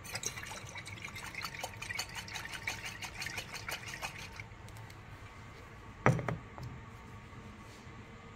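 Liquid sloshing and splashing inside a 500 ml glass Erlenmeyer flask shaken by hand, with quick rapid clicks against the glass, for about four and a half seconds; shaking mixes air into the alkaline glucose and indigo carmine solution. About six seconds in, one loud knock as the glass flask is set down on a hard tray.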